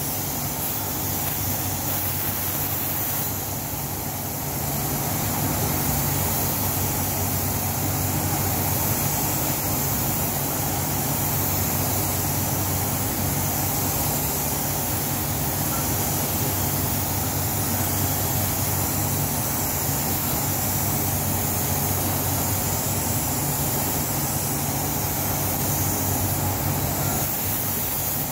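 Steady hiss of a compressed-air gravity-feed spray gun spraying paint, over the continuous hum of the spray booth's ventilation fans. The level dips briefly about four seconds in.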